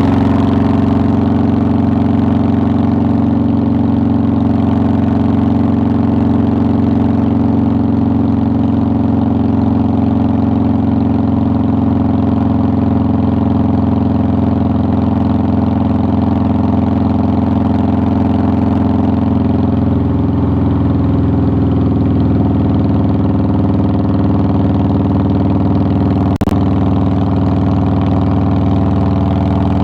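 2009 Harley-Davidson Softail Deluxe's Twin Cam 96B V-twin engine running at a steady speed, its pitch shifting slightly about two-thirds of the way through. A short click sounds near the end.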